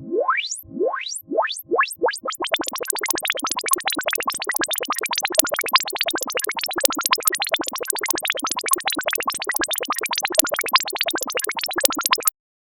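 Electronic sound effect: a rising pitch sweep repeated faster and faster until the sweeps blur into a rapid stutter, then it cuts off abruptly near the end.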